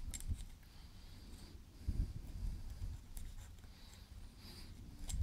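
Faint, intermittent scratching of a thin metal pick scraping silicone sealant off an aluminium load cell from a kitchen scale, in short strokes, with a soft handling bump about two seconds in.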